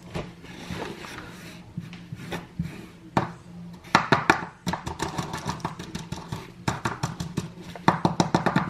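Potting soil and a plant pot being handled: rapid small clicks and scrapes. They come in quick runs from about four seconds in.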